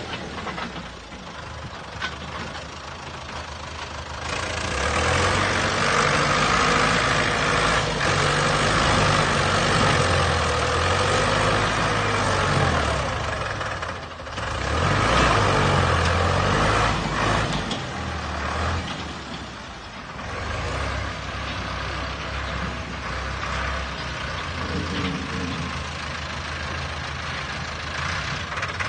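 Heavy earthmoving machine's diesel engine running under load, its pitch rising and falling several times as it works.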